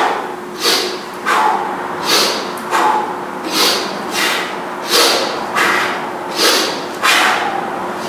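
A man's sharp, rhythmic breaths during one-arm kettlebell swings, a forceful breath in and out with each swing, about two-thirds of a second apart. A faint steady hum runs underneath.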